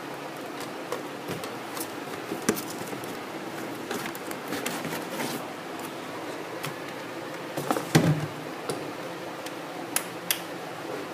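Cardboard box and packaging being handled: scattered taps, clicks and scrapes, with a louder knock about eight seconds in.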